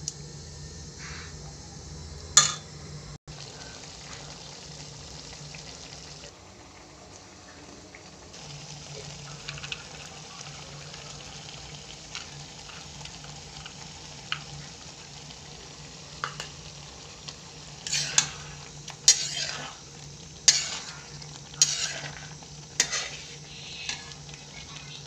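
A metal spatula stirring a thick curry in a metal kadai over a low sizzle, scraping and knocking against the pan: once early, then six sharp strikes in quick succession near the end.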